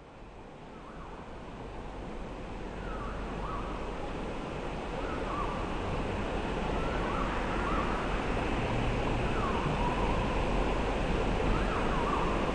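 Steady rush of flowing river water fading in, with a bird repeating a short sweeping call about five times, roughly every two seconds.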